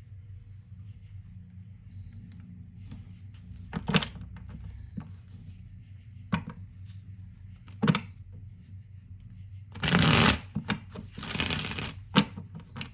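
Tarot cards being handled and shuffled. A few sharp snaps or taps come first, then two rustling shuffle bursts near the end, over a low steady hum.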